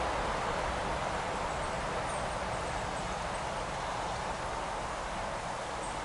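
Steady rushing of a small stream's water running over gravel.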